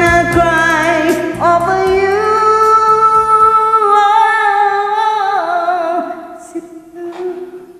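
Karaoke singing over a backing track: the singer holds one long note for several seconds, then lets it fall, and the song fades out near the end.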